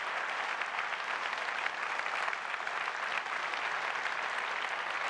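Large keynote audience applauding and cheering, a steady dense clapping throughout.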